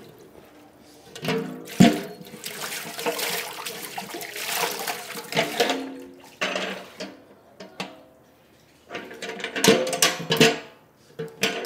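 Water running and splashing in irregular bursts, with a sharp knock about two seconds in and some clatter.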